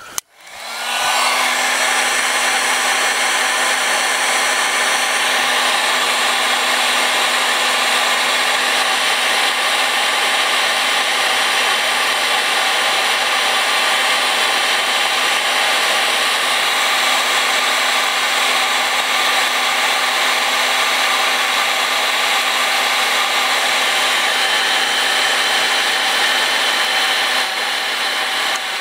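Electric heat gun switched on about half a second in. Its fan spins up with a brief rising whine, then runs with a steady blowing noise and a low motor hum. It is heating the factory bitumen sound-deadening on a car floor.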